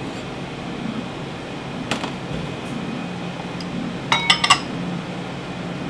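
Dishes clinking in a kitchen: a single sharp click about two seconds in, then a quick run of four or five ringing clinks about four seconds in, over a steady low hum.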